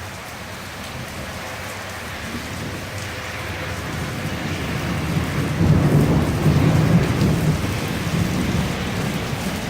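Thunder from a nearby lightning strike rumbling over heavy rain. It builds slowly, is loudest about six to seven seconds in, then rolls off, while the rain hiss stays steady.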